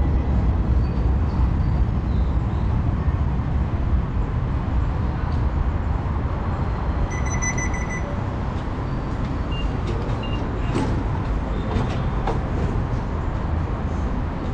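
A ticket fare gate gives a rapid run of high electronic beeps lasting about a second, about seven seconds in, as it is walked through. Around it runs a steady low rumble of station ambience, with a few sharp clicks a few seconds after the beeps.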